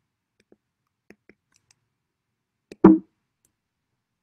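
A few faint clicks, then one short, loud thump about three seconds in.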